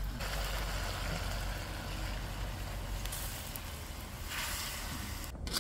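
Hot water poured from a kettle into a wok of simmering chicken curry, hissing and sizzling as it hits the hot pan; it grows brighter about three seconds in and stops abruptly near the end.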